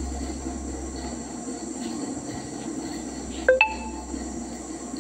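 Steady low hum and hiss of background noise, with two quick clinks about three and a half seconds in that ring briefly at a few distinct pitches.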